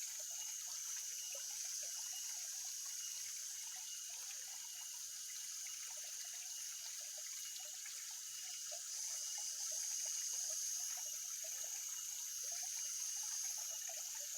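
Water trickling and bubbling steadily, over a constant high-pitched whine.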